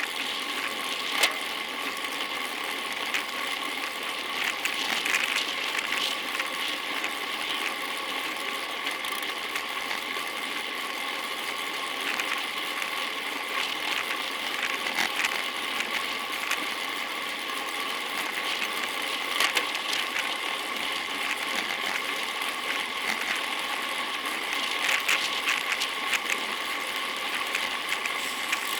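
Bicycle drivetrain and freewheel clicking steadily during a ride, over a steady hiss, with scattered sharper clicks.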